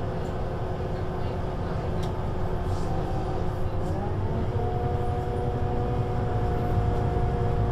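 Scania CK280UB city bus (Citywide LE) with its 9-litre five-cylinder diesel running under way: a steady low rumble with a few steady whining tones. About four seconds in the tones rise in pitch and hold higher, and the sound slowly grows louder.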